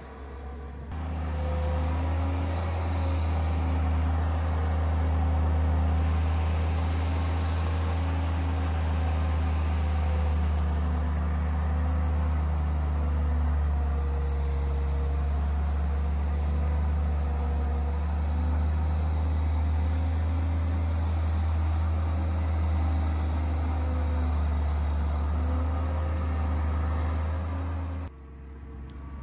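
An engine running steadily at one speed, a deep even hum that starts about a second in and cuts off suddenly near the end.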